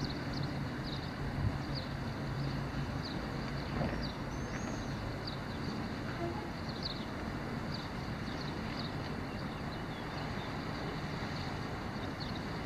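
Wind rushing over the microphone, a steady noisy rumble, with short high bird chirps coming every second or so.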